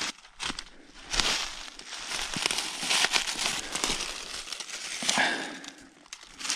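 Dry oak leaves and twigs crunching and rustling in irregular crackles as boots step through the leaf litter and a hand reaches into it to pick up a dead squirrel.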